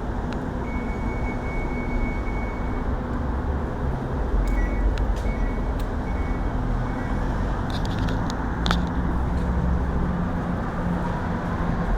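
Electric commuter train at a station platform: a steady low rumble and hiss, with a faint high tone that comes and goes in short dashes and a few sharp clicks.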